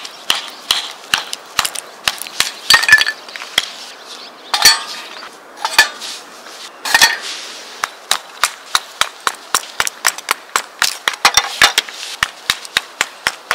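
Firewood being split into kindling by batoning: a stick of wood repeatedly knocks on the back of a knife blade driven into thin firewood. A few louder cracks come in the first half as pieces split, then the knocks settle to a steady two or so a second.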